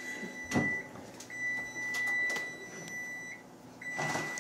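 Oven timer beeping a steady high tone in long stretches with short gaps, signalling the cookies are done baking. A few sharp knocks come about half a second in and in the middle, and a clatter near the end as the oven door is opened.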